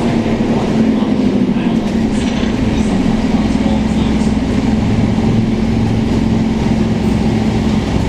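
Scania K230UB city bus heard from inside the passenger cabin: the Scania DC9 engine and drivetrain running with a low rumble and a steady tone that drops slightly in pitch about three seconds in and stops just before the end.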